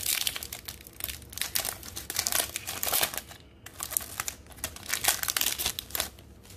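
Crinkly plastic wrapper of a trading-card pack being handled, crackling in irregular spurts with a short pause about halfway through.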